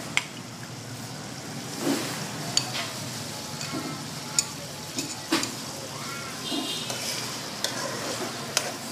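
A metal ladle scooping a simmering coconut-milk pork curry from a steel pan into a bowl: liquid slopping and bubbling under several sharp clinks of the ladle against the pan and bowl.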